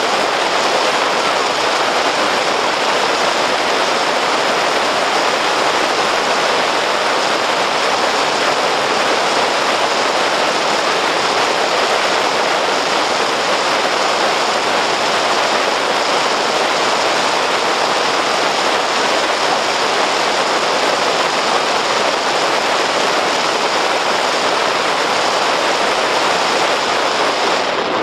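Steady rushing road and tyre noise of a car driving on a snow-covered road, heard from inside the cabin.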